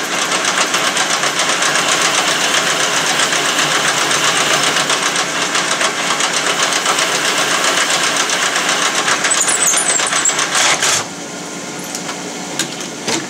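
Metal lathe facing the end of a pipe: a steady, loud cutting rasp as the tool feeds across the spinning end, with a brief high squeal near the end of the cut. About eleven seconds in the cut stops and the sound drops to the quieter running of the lathe.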